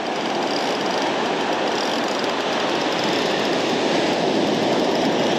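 A surfcasting spinning reel being cranked steadily, winding in line with a small hooked fish on. It makes a continuous mechanical whir that holds level throughout.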